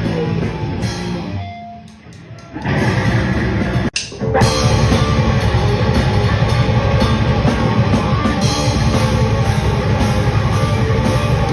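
Heavy rock music with drum kit and guitar. It thins out and drops away about two seconds in, comes back, breaks off sharply for a moment about four seconds in, then plays on loud and dense.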